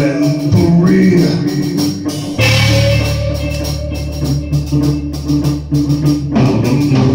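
Live rock band playing with electric guitar, bass, drums and keyboard; a low bass note and a chord are held for a few seconds in the middle before the full band comes back in.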